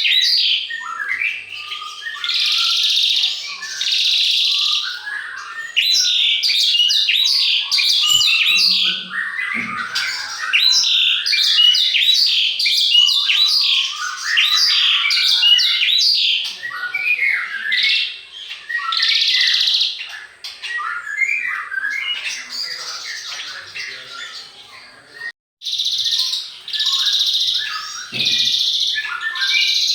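Several songbirds chirping and singing together, a dense run of quick overlapping chirps, trills and buzzy calls that breaks off for a moment about 25 seconds in.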